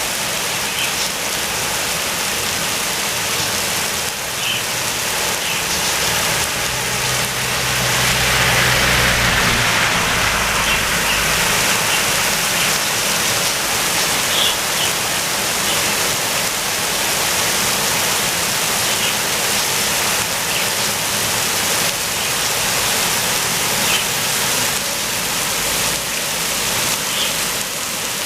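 Heavy rain pouring down steadily, with scattered drips ticking. About eight seconds in it swells louder with a brief low rumble.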